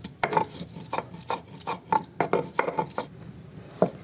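Stone roller (batta) grinding soaked dried dates and dried coconut on a flat grinding stone (sil): a rhythmic series of scraping knocks about three a second, pausing near the end before one more knock.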